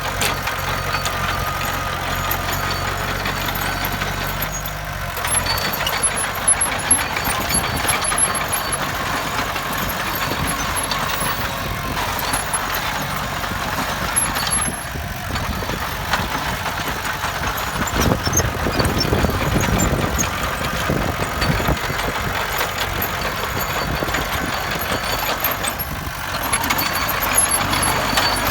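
Heavy earthmoving machinery running, its diesel engines rumbling steadily with some rises and dips in level.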